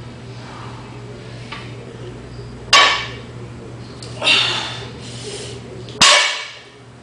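A 170 lb barbell loaded with iron plates is set down on the floor between deadlift reps. There are two sharp metallic clanks about three seconds apart, each ringing briefly, with a softer noisy burst between them, all over a steady low hum.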